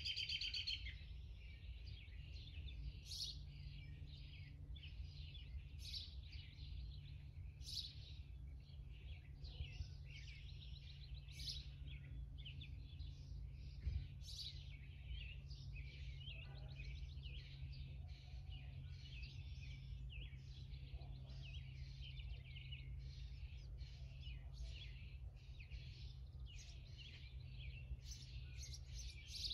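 Small birds chirping and calling again and again, over a faint steady low hum.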